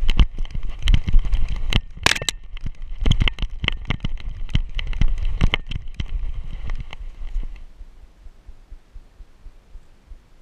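A dog running through snow, heard from a camera on its back: quick irregular pawsteps and knocks with the collar and camera mount rattling over a low rumble from the motion, and a sharp metallic clink about two seconds in. About seven or eight seconds in the dog stops and stands, and only faint occasional ticks remain.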